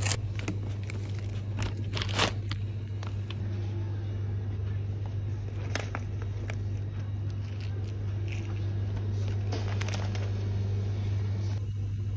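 Supermarket ambience: a steady low hum with a few sharp clicks and rattles from a shopping cart and grocery packages being handled.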